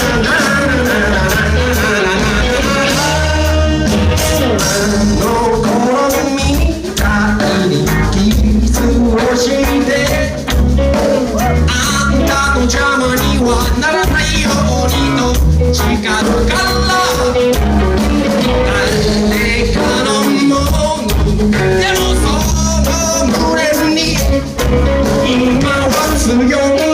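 Live band playing a song, loud and continuous with a steady beat; no words are made out, so this is likely the instrumental lead-in before the vocals.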